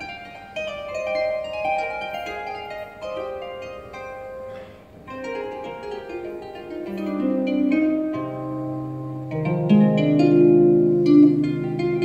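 Lever harp played solo, a run of plucked notes in the middle and upper range; about eight seconds in, lower and louder notes come in and ring on beneath the melody.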